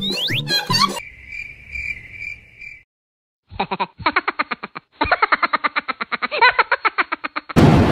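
Frog croaking sound effect: a long run of fast, evenly repeated croaks, about ten a second, after a steady high chirping tone. The first second holds cartoon music with sliding boing tones, and near the end a sudden loud rush of thunder and rain cuts in.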